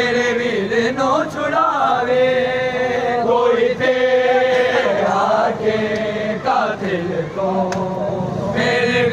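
Men's voices chanting a Punjabi noha (Shia lament) with long, drawn-out held lines.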